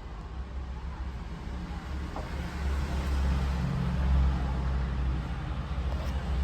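Vehicle engine running with a low, steady rumble that grows louder around the middle and then eases back.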